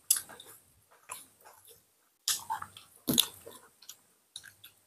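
Close-miked chewing and lip-smacking while eating, a run of irregular wet mouth clicks and smacks, loudest a little past halfway.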